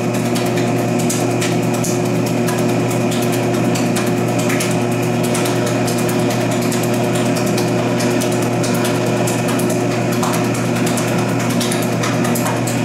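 Mabell bakery mixer's electric motor running at a steady hum, its beater turning eggs, sugar and yeast in the bowl to dissolve the yeast, with scattered light clicks.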